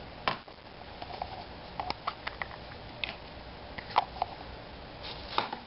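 Scattered light clicks and taps of a hollow plastic surprise egg being handled and opened by hand, with small plastic toy parts knocking together. The sharpest click comes about four seconds in.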